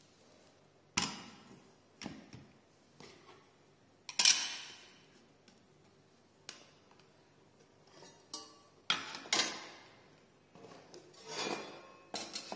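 Hard parts knocking and clicking together as a glass panel and fitting pieces are set into an aluminium railing base channel: about ten separate sharp knocks with short ringing tails, the loudest about four seconds in.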